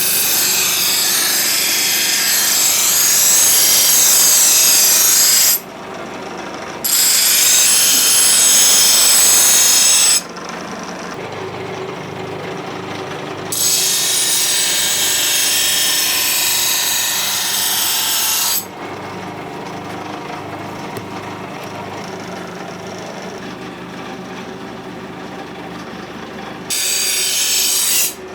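A power tool running in four hissing bursts of several seconds each, each starting and stopping abruptly, with a quieter steady hum between the bursts.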